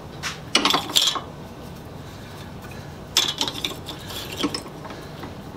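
Metal parts clinking and clanking as they are handled, in two short clusters: one about half a second in, another from about three seconds in.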